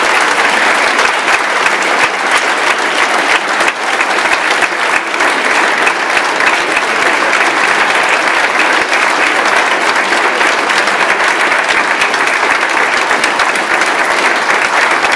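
Audience applauding in a concert hall, dense and steady.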